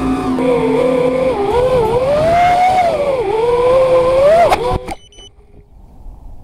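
Brushless motors of a BFight210 racing quadcopter whining, the pitch rising and falling with the throttle. The whine cuts off abruptly with a click about five seconds in, leaving only faint outdoor noise.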